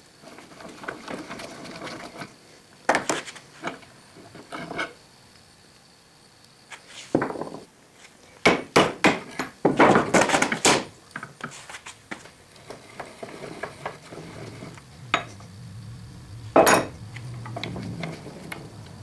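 Metal parts knocking and clattering on a workbench as a cast metal shear is taken apart, with a dense run of knocks about halfway through and one sharp strike near the end. A faint low hum comes in during the second half.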